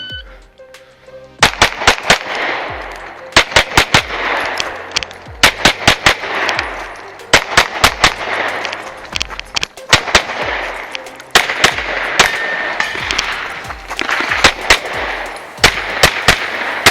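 Rapid pistol fire from a 2011-pattern pistol in 9mm major: quick strings of several shots about every two seconds, with short pauses between them as the shooter moves between targets.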